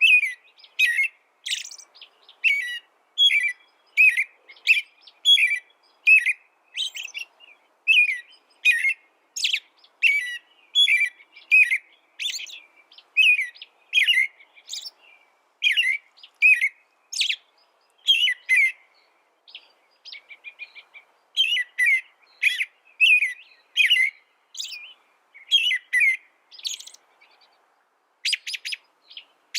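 A small songbird singing a long run of short, sharp chirping notes, about two a second, with a fast rattling trill near the end.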